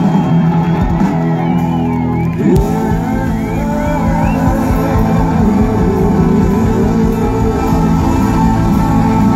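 Live band playing an instrumental passage of the song, with a steady beat and sliding melodic lines in the first couple of seconds.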